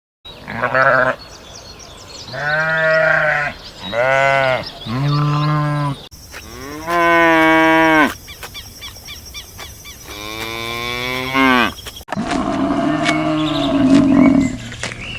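Cattle mooing: about six moos, each a second or so long, spliced together from separate recordings. Near the end a different, rougher animal call takes over.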